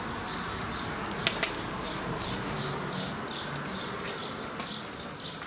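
Wood fire in a freshly lit masonry heat-storage fireplace, the strong draught pulling air through it with a steady rushing noise while the burning hardwood logs crackle with a few sharp pops.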